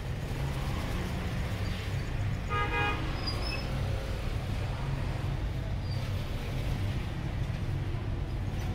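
Steady low rumble of street traffic, with a vehicle horn honking once, briefly, about two and a half seconds in.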